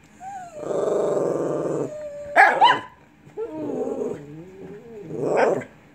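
Two small dogs, a Lhasa Apso and a black-and-white dog, 'talking': a long growly grumble, a sharp high yelp, a wavering whining moan, then a short bark near the end.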